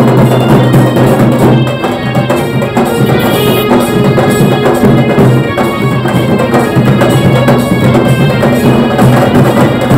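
Bengali wedding band party playing loudly: horns carrying a melody over a steady low line and drums, recorded on a phone's microphone. The volume dips briefly about two seconds in.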